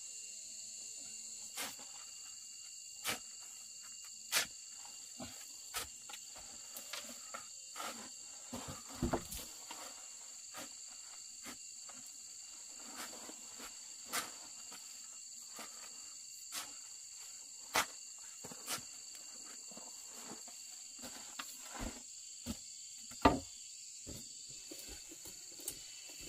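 Steady high-pitched insect chorus in the background, with scattered sharp clicks and snaps through it, the loudest about three-quarters of the way through.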